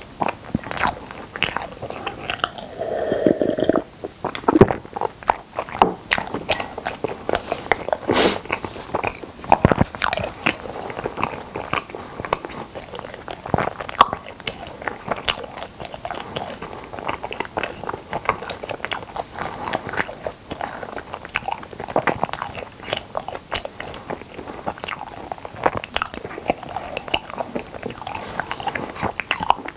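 Close-miked chewing of milk caramel ice cream: a steady run of irregular wet crunches and mouth clicks, with no words.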